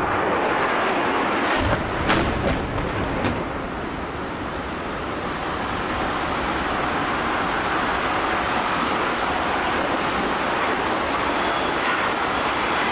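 A jet airliner crashing into a skyscraper and exploding: a sharp crack about two seconds in, with a few more bangs over the next second, over a steady noisy roar that continues afterwards.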